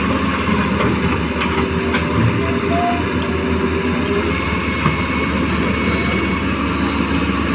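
Small electric motors and gearboxes of a Huina RC excavator running steadily as it works sand, a continuous low whirring hum.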